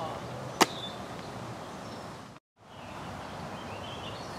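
Steady outdoor background noise with a single sharp click about half a second in. The sound cuts out completely for a moment near the middle, then comes back with faint high chirps.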